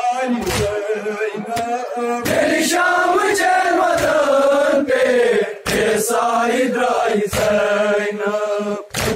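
A group of men chanting a noha, a mourning lament, in unison on long drawn-out notes. A heavy thud comes every couple of seconds, the beat of hands striking chests in matam.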